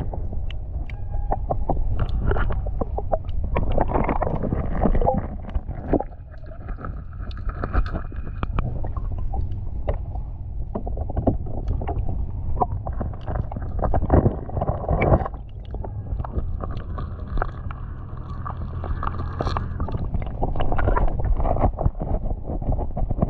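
Muffled underwater sound from a submerged camera: a steady low rumble of moving water with frequent clicks and knocks as hands work among and pull oysters off a shell bed.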